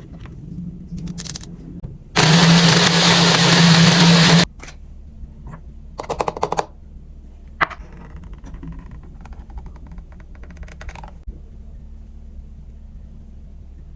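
Electric blender running in one loud burst of about two seconds, a couple of seconds in, with a steady motor hum under the whirring. Afterwards come a few short clattering sounds and clicks.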